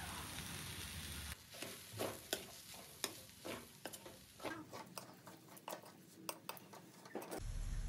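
Metal spoon scraping and clinking against a wok while stir-frying noodles: irregular scrapes and clicks, a few to several a second, starting after a steady hum of about a second.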